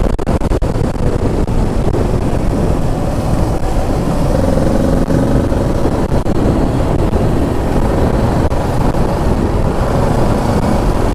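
Kawasaki Ninja 650's parallel-twin engine running at road speed, under steady wind and road rumble at the camera.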